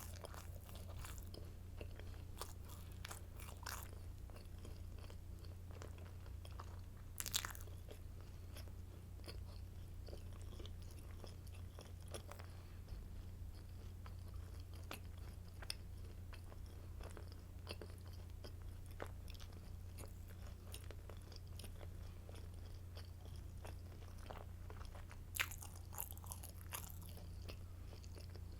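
Close-miked chewing of crunchy garlic stick baguette: steady small crackles of crust being chewed, with a louder crunchy bite about a quarter of the way in and another near the end. A steady low hum sits underneath.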